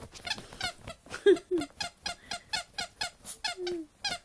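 Squeaky porcupine dog toy squeaking over and over, about four short high squeaks a second, as a dog digs at it through a sheet. A couple of lower, falling squeaks come in the middle.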